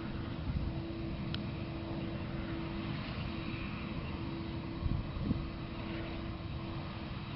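Distant jet engines of a twin-engine airliner taxiing, a steady low hum and rumble. Two short low thumps come about five seconds in.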